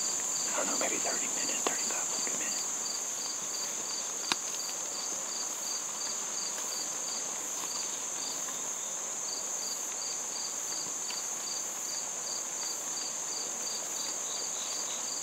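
Steady high-pitched drone of insects, with a cricket chirping in an even rhythm of about three chirps a second that pauses briefly midway. There is a faint rustle in the first second and a single sharp click about four seconds in.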